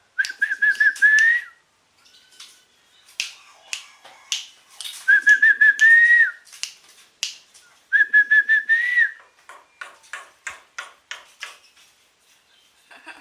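A jalak suren (Asian pied starling) calling in imitation of a chicken: three whistled phrases, each a quick run of wavering notes ending on a rising note, with sharp clicks between them.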